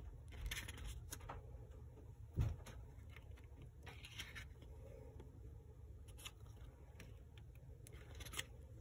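Paper pages of a CD photo booklet being flipped by hand: faint, scattered rustles and page flicks, with one soft low thump about two and a half seconds in.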